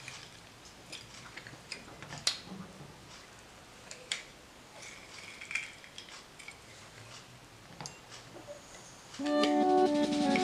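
Faint clicks and knocks from a metal hand-held lime squeezer being pressed over a glass bowl. Near the end, background music starts and is louder than the squeezing.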